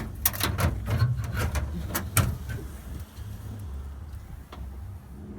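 Latches and lid of a metal truck toolbox being worked: a quick string of sharp clicks and clanks in the first two seconds or so, then only a low rumble. The latches are stiff, hard to operate and stick.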